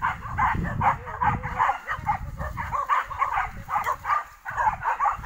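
Hunting dogs barking and yelping rapidly and without pause, about three to four barks a second, at a wild boar they are holding at bay.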